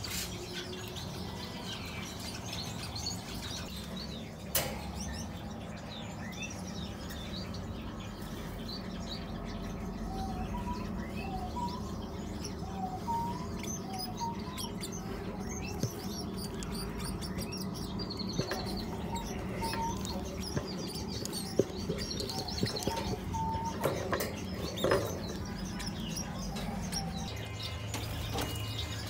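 Small cage birds in an aviary chirping and calling, many short high chirps overlapping, with a run of short lower notes about a third of the way in, over a steady low hum.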